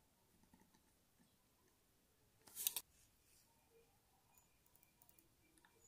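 Near silence, broken by one short, sharp metallic scrape-click about two and a half seconds in, from steel tweezers setting a small screw into a wristwatch movement, then a few very faint ticks.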